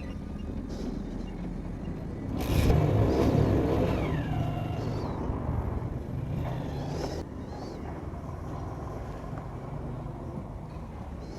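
A motor vehicle runs close by, swelling louder about two and a half seconds in and then fading back into a steady rumble of road traffic.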